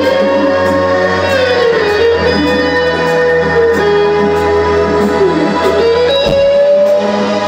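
Live rock band playing an instrumental passage: an electric guitar lead holds long notes that bend and slide in pitch, over bass and drums with a steady cymbal beat.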